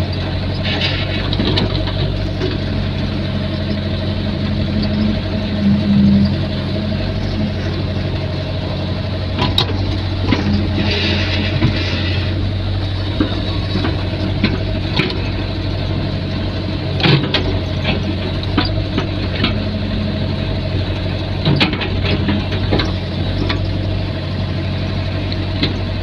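Excavator engine running steadily, with a few sharp knocks and clanks now and then.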